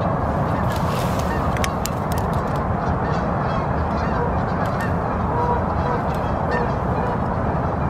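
Geese honking: short pitched honks repeated about twice a second, more often in the second half, over a steady rushing background noise. A few sharp clicks sound between about one and two and a half seconds in.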